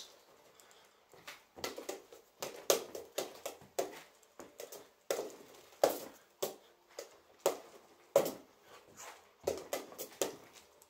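Fists smacking a leather double-end punching bag in quick irregular flurries, single hits and bursts of two or three, as the bag rebounds on its cords. The strikes start about a second in and carry on through.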